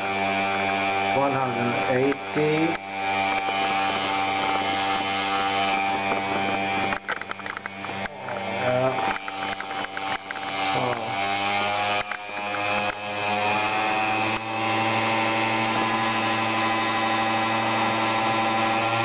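Dremel 4000 rotary tool running at speed and spinning a small 23 W, 220 V pump motor through a coupling: a steady whine made of several tones. The whine shifts a few times as the speed is raised and settles steadier near the end.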